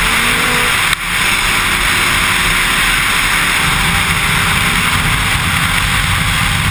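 Snowmobile running at speed, its engine and track noise under heavy, steady wind rush on the helmet-mounted microphone.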